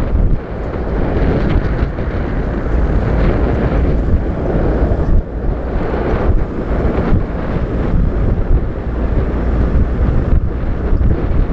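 Wind buffeting the microphone on an open safari vehicle driving along a dirt track, over a steady low rumble of the engine and tyres. The noise is loud and gusty.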